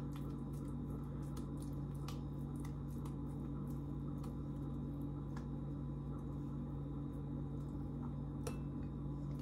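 Soft, quiet squishing of a mashed potato and spinach kebab mixture being pressed and rolled into patties between oiled hands, with faint scattered clicks over a steady low hum.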